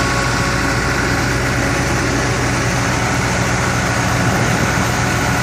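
Farm machinery running steadily at constant speed: a heavy engine hum with a steady high whine over it.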